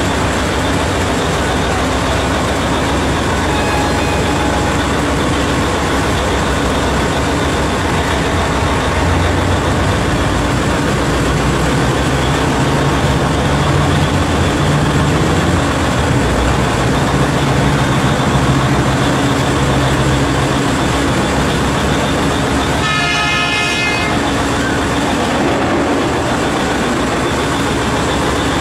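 CAT 7495 electric rope shovel and its haul truck at work loading, a steady heavy machinery rumble with a low hum that swells midway. A short horn blast of about a second sounds near the end.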